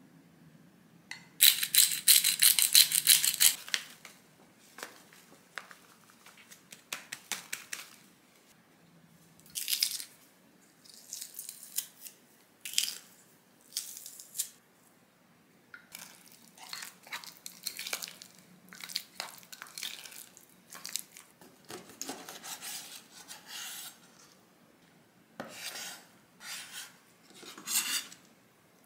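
Kitchen prep sounds while mixing a sauce in a glass measuring cup. A loud burst of rapid scratching about two seconds in is followed by scattered clinks and scrapes of spoons against the glass, a garlic press squeezing cloves, and a knife cutting raw chicken on a cutting board near the end.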